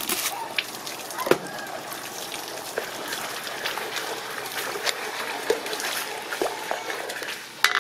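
A wooden spatula stirring and scraping a thick, wet sauce around a metal wok, with sloshing and scattered short clicks of the spatula against the pan.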